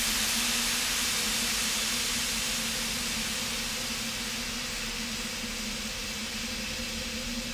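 Steady hiss of broad noise with a low steady hum beneath it, slowly fading.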